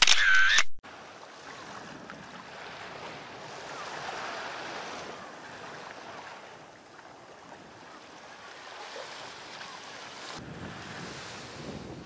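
Small waves washing onto a sandy beach, a steady soft surf with some wind on the microphone. It opens with a short, loud sound effect ending the title logo.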